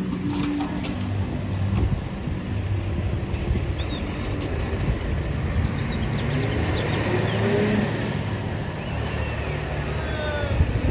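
Rear-loader garbage truck's diesel engine running and revving up, its pitch rising through the middle, with a low thump near the end.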